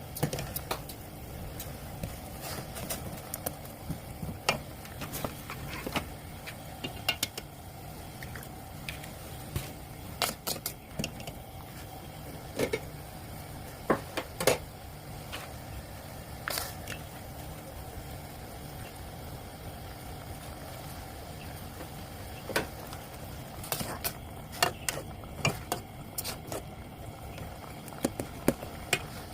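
Cooking clatter: scattered clinks and knocks of utensils and cookware, some in quick clusters, over a steady low hum.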